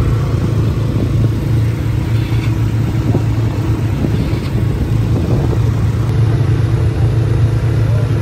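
A motor vehicle's engine running steadily at an even speed, a loud low drone.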